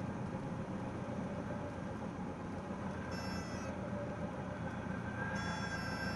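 Cessna 172S's four-cylinder Lycoming engine running steadily at low power, heard inside the cockpit while the plane rolls out after landing and turns off the runway. A high whistling tone sounds briefly about three seconds in and comes back a little after five seconds in.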